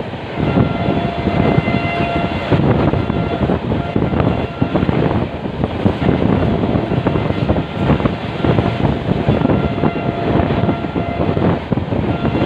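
Passenger express train running at speed, heard from the open side of a coach: the steady rush and rumble of the wheels on the rails mixed with wind buffeting the microphone.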